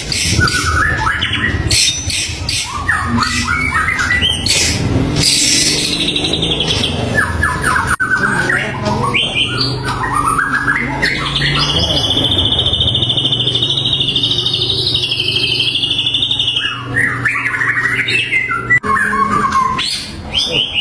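White-rumped shama singing a varied song: quick rising and falling whistled phrases and harsh rattling notes, with a long wavering trill through the middle.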